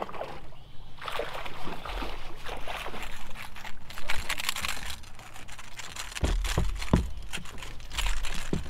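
A big bass splashing and thrashing at the water's surface as it is dragged to the boat and swung aboard, water spraying off it. A few heavy thumps follow about six to seven seconds in.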